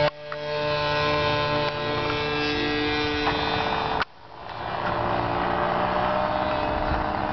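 Engine of a GP Ultimate 40 radio-controlled model biplane running with a steady buzz as the plane climbs away in flight. The sound drops out abruptly at the start and again about four seconds in, coming back over about a second each time.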